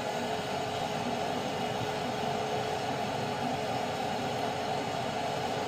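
Burnham Alpine condensing boiler firing at 100% on a heating call: a steady, even rush from its combustion blower and burner with a faint steady hum.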